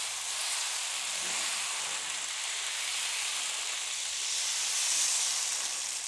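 Poha-and-rice dosa batter sizzling on a hot tawa as it is spread out in circles with a cup; a steady hiss that swells a little about five seconds in.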